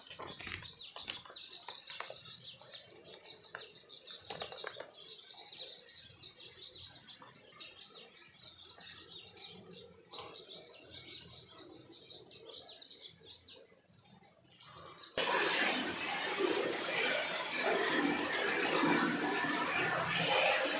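Birds chirping faintly, with a few sharp clicks, then about fifteen seconds in a sudden loud, steady rushing noise takes over.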